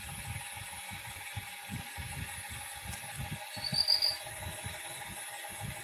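Low, irregular rubbing and fumbling against a phone's microphone over a steady faint hiss, with one short high chirp about four seconds in.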